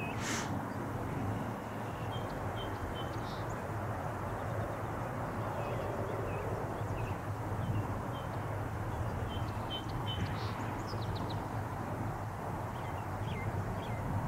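Steady distant rumble of jet engines across an airfield, with small birds chirping in short calls throughout.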